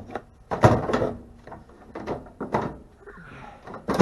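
Sheet-metal and plastic microwave parts being handled during a teardown. A loud scraping rush about half a second in, then a string of short clunks and clicks, and a sharp knock at the end.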